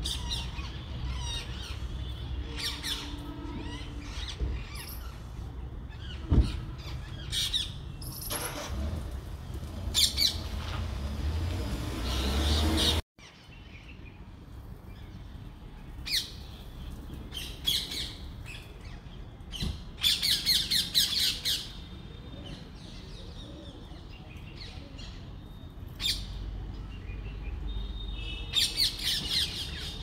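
Rose-ringed parakeets squawking: repeated short, shrill calls, with fast rattling runs of calls about two-thirds of the way through and again near the end. A low rumble lies underneath and cuts out suddenly just before the middle.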